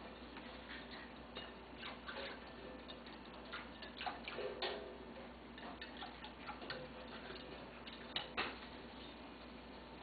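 An African grey parrot tapping and knocking a spoon: light, irregular clicks, with a few sharper knocks about four seconds in and again about eight seconds in.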